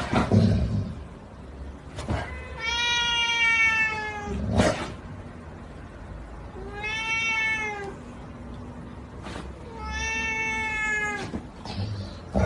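A cat meowing: three long, drawn-out meows a few seconds apart, each rising and falling in pitch, with a short knock just after the first.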